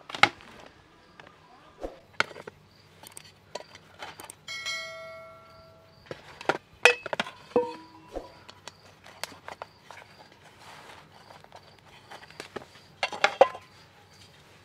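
Fluted metal baking pans clinking and knocking against each other and against a metal serving tray as baked breads are lifted out and turned onto the tray. One pan rings for about a second around four seconds in, and there is a quick flurry of knocks near the end.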